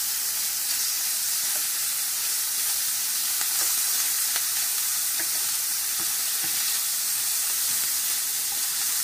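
Chopped bacon sizzling in a stainless steel pan with no oil added, frying in the fat it is starting to render, while a wooden spoon stirs it across the pan. A steady high hiss with faint scattered small clicks.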